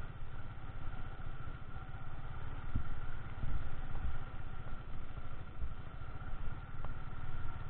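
Motorcycle engine running at low speed, a steady low throb under a haze of wind noise, with a few low knocks about three and four seconds in.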